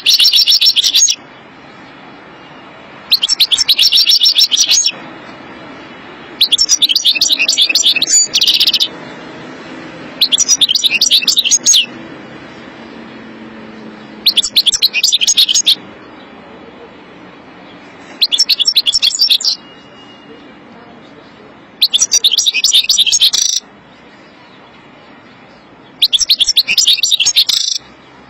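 A caged European goldfinch singing in excited bursts of rapid, high twittering notes. Each phrase lasts under two seconds and comes every few seconds, eight times in all.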